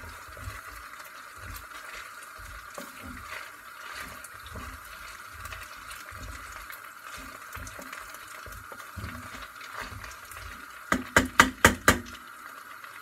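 Pasta being stirred in butter and sunflower oil in a stainless steel pot over a gas flame, with a steady low hiss and soft irregular scrapes and thuds as the pasta, slightly burnt and sticking to the base, is turned over. Near the end comes a quick run of about six sharp knocks.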